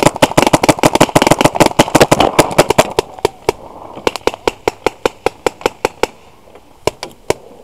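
Paintball markers firing cover fire: a rapid string of shots, about nine a second, for the first two seconds or so, then slower, scattered shots for the rest.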